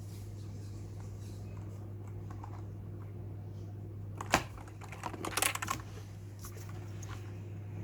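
Keys on a Havit KB498L mechanical keyboard with blue switches being pressed: a few scattered light clicks, one sharp loud click about four seconds in, then a quick burst of keystrokes, over a steady low hum.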